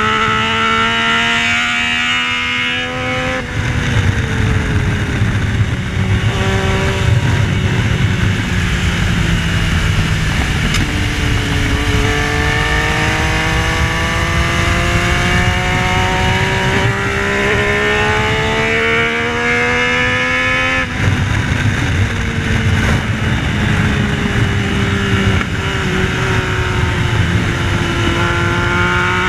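Yamaha Tracer 900's three-cylinder engine at full track pace, pitch climbing steadily through two long pulls and dropping sharply at about three and twenty-one seconds in, then falling away slowly before picking up again near the end. Heavy wind rush sits under the engine throughout.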